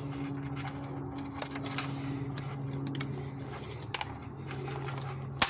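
Light clicks and taps of hard plastic engine-bay parts being handled and pried, with a sharp click near the end, over a steady low hum.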